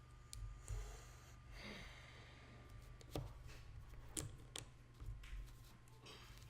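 Faint handling of plastic Lego pieces: soft rustling and a few sharp clicks, one about three seconds in and two more about a second later.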